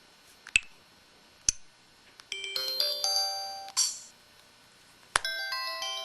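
Samsung SPH-X8500 mobile phone playing its effect tones through its small speaker: two short clicks, then a brief bright multi-note electronic melody, and after another click a second melody begins near the end.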